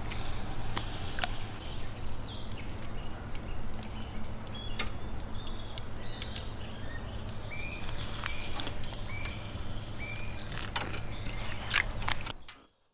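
Wet squelching, light splashing and small clicks as hands peel the skin off boiled beef tongues in a bowl of cold water, with small birds chirping and a steady low hum underneath.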